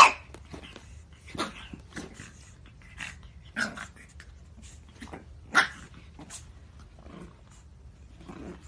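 Pug puppy barking at its own reflection in a mirror: a few short, sharp barks, the loudest right at the start.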